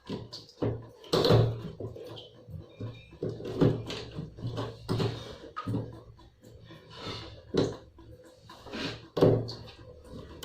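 Irregular knocks and clatters of hard washing-machine parts being handled and fitted during work on its clogged drain.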